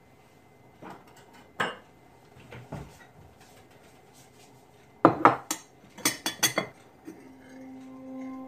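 Metal teaspoon and ceramic crockery clinking: a ceramic canister's lid coming off, the spoon scooping and tapping against the jar and a mug. A few single clinks come first, then a quick run of sharper clinks about five seconds in, and near the end a steady low musical drone comes in.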